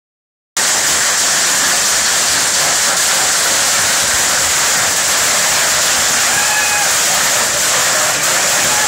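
Heavy rain pouring down steadily, a dense even hiss that starts suddenly about half a second in.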